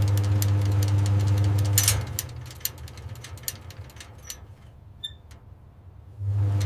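Scattered sharp ticks of the first raindrops falling, over a low steady electrical hum that cuts out after about two seconds and comes back near the end.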